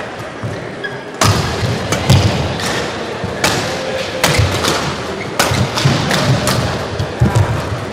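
Badminton rally: rackets striking the shuttlecock, sharp hits about once a second, with low thuds from the players' footwork on the court.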